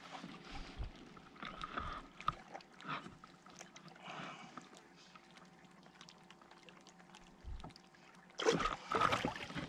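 Light knocks and rustling of handling a just-caught Murray cod and gear aboard a fishing kayak, with a louder burst of noise near the end.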